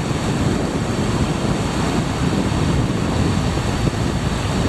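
Sea waves surging and breaking over shoreline rocks, a steady wash of surf, with wind buffeting the microphone.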